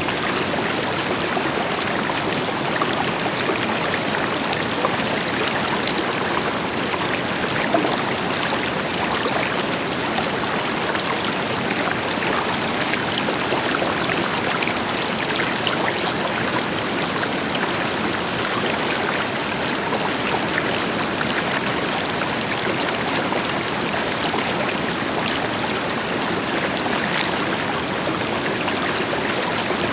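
River water flowing in a steady, even rush with fine splashing, and the deeper hiss of a distant waterfall beneath it.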